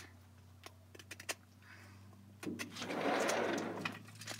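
Small Winchester pocketknife whittling a wooden stick, taking the rough knobs off: a few sharp clicks of the blade on the wood, then a longer rasping scrape about two and a half seconds in. A low steady hum runs underneath.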